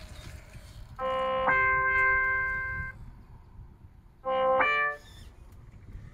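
A robot's nonverbal sound cue: electronic keyboard-like tones. The first figure steps up from a lower chord to a higher one and is held about a second and a half. About a second after it ends, a shorter figure steps up the same way. A low steady background noise runs underneath.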